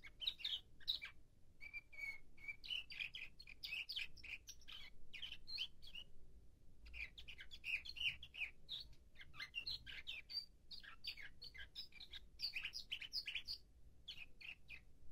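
Young nightingale-song canary singing a long run of rapid chirps, trills and slurred notes, breaking off briefly about six seconds in and then carrying on. The bird is in its tertip stage, still working out the order of its song.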